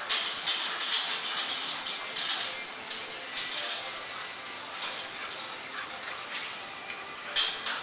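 Rapid, irregular light clattering and scratching on a hard surface, busiest in the first few seconds, with a sharper clack near the end.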